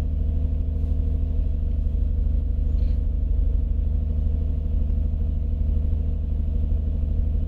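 2007 Nissan Murano's 3.5-litre V6 idling steadily.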